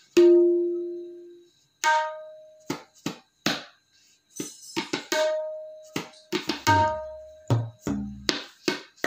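Tabla played solo with separate sharp hand strokes. Right after the start, one stroke on the dayan rings with a clear pitch for over a second. Deep booming strokes on the bayan come in the second half.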